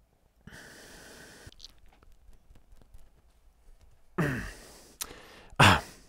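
A man's sigh, breathy with a falling voice, about four seconds in, followed by a quick intake of breath; before it there is a soft hiss for about a second and faint room noise.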